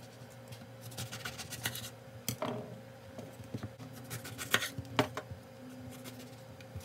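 Chef's knife slicing an eggplant into rounds on a wooden cutting board: scratchy rasps as the blade cuts through, with a few sharp knocks as it meets the board, the loudest about four and a half and five seconds in.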